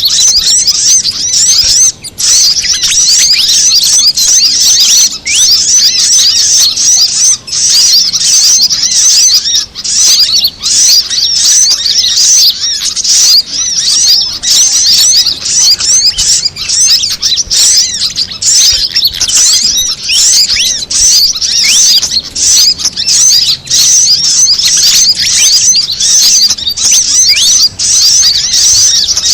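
Bird-lure recording of fantail and sunbird calls: a dense, unbroken stream of high, quick chirps and twitters from small birds, many overlapping.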